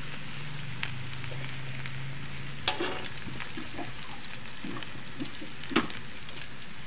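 Lumpia (spring rolls) deep-frying in hot oil in a wok: a steady sizzle with fine crackling. A spatula knocks sharply against the wok twice, about three seconds in and again near six seconds, as it turns the rolls.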